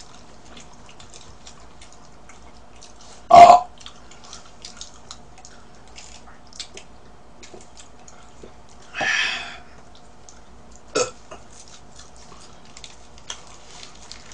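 A loud, short burp about three seconds in, from a person eating a burger and soda. Around nine seconds there is a softer hissy sip through a drinking straw, and a brief sharp sound near eleven seconds.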